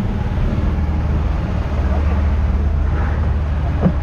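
An engine running steadily with a low rumble, with faint voices around it and a brief knock near the end.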